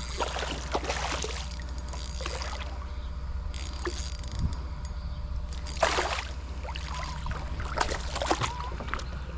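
Water splashing and dribbling with scattered light knocks against a kayak as a freshly caught bass is handled, over a steady low rumble.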